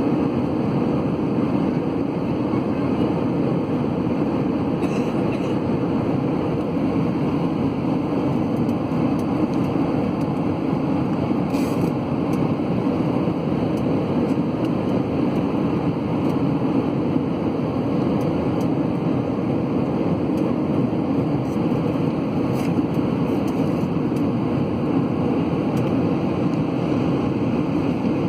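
Steady cabin noise of an Airbus A320 in flight, heard from a window seat over the wing: the engines and the rush of air past the fuselage as an even, low rumble. A few faint ticks sound over it.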